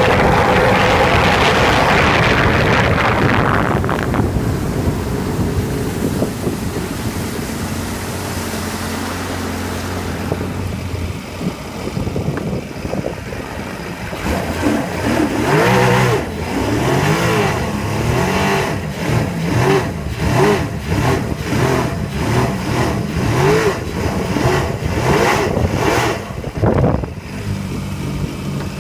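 Sea-Doo personal watercraft engine running at speed with wind and water noise, easing to a lower steady note after a few seconds. Through the second half the engine note swells and falls about once a second, with a splashy hit each time.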